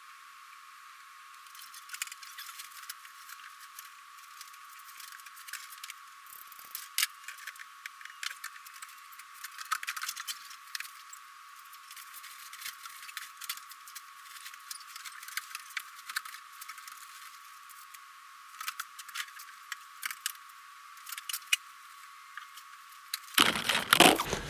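Irregular clicks, taps and rattles of plastic PEX tubing being handled and bent straight off its coil, sounding thin with no bass. A louder clatter comes near the end.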